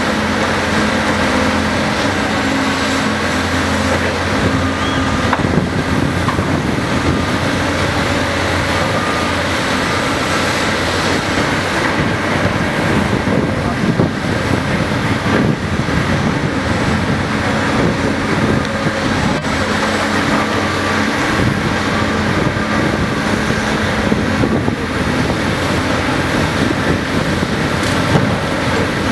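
Cat 385BL excavator's diesel engine running steadily under load while it swings and digs, with a few short knocks from the work.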